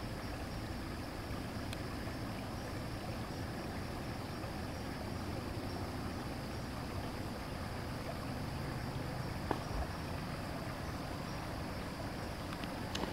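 Steady low rumbling hiss of night-time ambience picked up by a trail camera's microphone, with one faint click about nine and a half seconds in.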